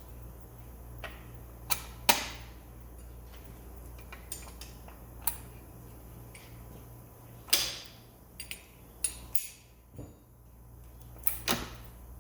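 Irregular sharp mechanical clicks and clacks, about ten of them, from a Porsche PDK transmission being shifted through its gears by hand, its shift forks moving, over a steady low hum.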